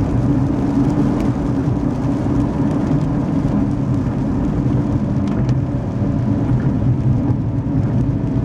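Steady in-cabin driving noise of a car moving on a wet road: a constant low engine and road drone with tyre hiss from the wet pavement.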